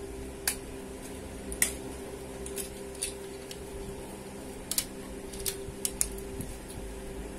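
Scattered sharp clicks and taps as the legs and fittings of a ring light's tripod stand are handled and unfolded, over a steady background hum.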